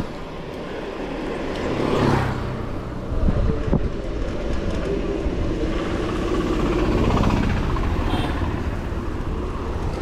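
Motor vehicles passing on a road over a constant low rumble, with swells about two seconds in and again around seven seconds.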